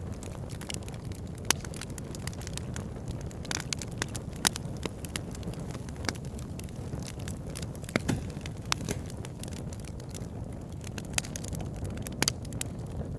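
Firewood burning in a campfire: irregular sharp crackles and pops from the logs, a few louder snaps among them, over a steady low rumble.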